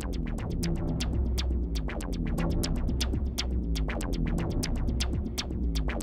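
Electronic background music: a fast ticking beat over a steady deep bass, with short synth phrases that repeatedly slide downward.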